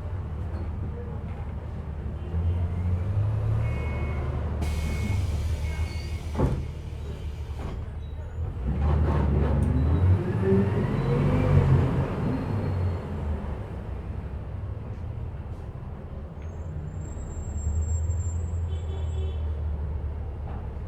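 Ride inside a moving city bus: steady engine and road rumble. About five seconds in there is a short hiss of air, then a knock. Around ten seconds in the engine note climbs and falls back again.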